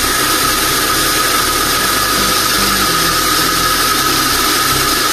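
Electric mixer grinder running steadily, puréeing boiled tomatoes and carrots in its small steel jar, a constant motor whine over loud even noise.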